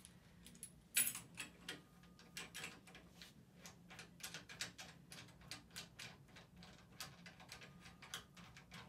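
A run of irregular clicks and light knocks, two or three a second, the sharpest about a second in: a traction pulley being fitted and clamped onto the bed's traction frame.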